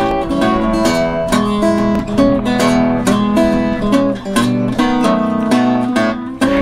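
Background music played on acoustic guitar: a continuous run of plucked and strummed notes.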